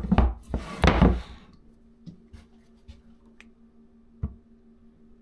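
Hands handling workpieces: a few loud scraping rustles in the first second or so, then a few light clicks and a sharper knock about four seconds in, over a faint steady hum.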